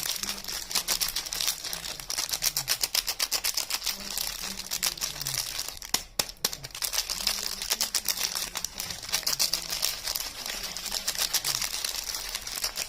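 Bars of soap and their wrapping handled close up: a dense, continuous run of crisp crackling and crinkling clicks, briefly interrupted about six seconds in.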